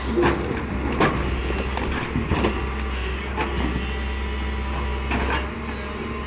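Heavy machinery engine running steadily on a demolition site, with irregular knocks and crunches of breaking rubble about once a second or two.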